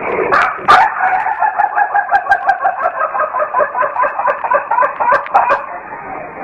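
Rooster crowing in a long, rapid run of stuttering pulsed notes, about five a second for some five seconds, a crow that sounds like laughing out loud.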